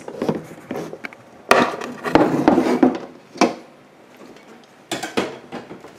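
Handling knocks and scraping from plastic reptile tubs as a mouse is moved out of one: a cluster of knocks and rubbing about one and a half to three seconds in, another knock soon after, and two more sharp knocks near the end.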